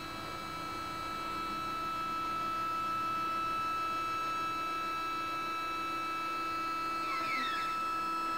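SynScan EQ5 Pro stepper motors driving an EXOS-2 equatorial mount through a slew: a steady whine made of several fixed tones, with a brief chirping glide in pitch about seven seconds in.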